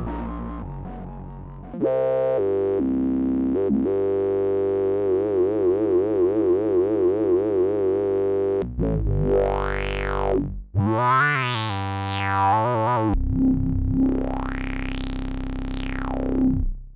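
Moog Subsequent 37 analog synthesizer playing held bass notes that step between pitches, then wobble with a wavering vibrato. Near the end come three long sweeps that rise and fall in brightness.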